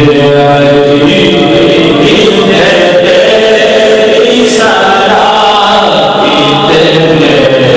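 A man's voice chanting Islamic devotional verse unaccompanied, in long held notes.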